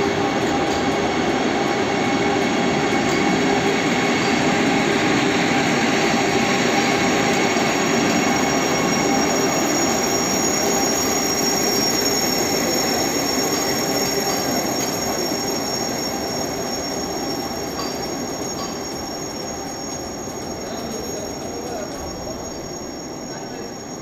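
Vande Bharat electric train running along the track, a steady rumble with high whining tones over it, fading gradually over the last third as it moves away.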